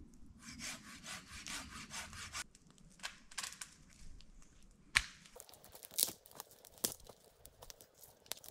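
Hand saw cutting through a branch of firewood with quick strokes, about five a second, for about two seconds. From about five seconds in come a few sharp cracks and knocks of wood.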